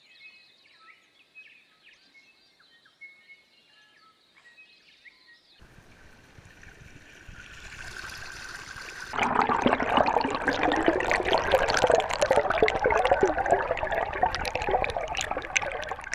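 Faint bird chirps, then from about six seconds in the rush and splash of water churned by a small electric trolling motor's propeller, growing much louder about nine seconds in.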